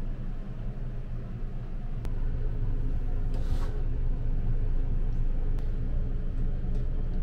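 A steady low hum, with a few light clicks and a short hiss about halfway through as plastic pump bottles of shampoo and body soap are handled.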